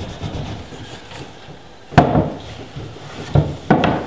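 A cloth buffing beeswax polish on the wooden frieze of a Georgian corner cabinet, with scuffing strokes and a sharp knock against the wood about two seconds in and two more near the end.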